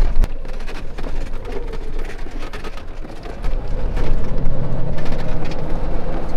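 Car engine and tyre rumble heard from inside the cabin while driving slowly, with scattered small knocks and rattles; the engine note grows louder about three and a half seconds in.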